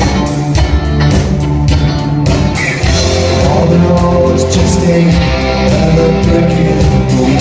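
Rock music played loud, with guitar and drums.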